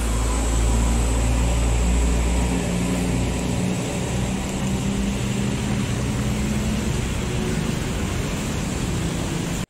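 Steady outdoor urban background noise: a deep rumble under an even hiss, the rumble easing after about two and a half seconds.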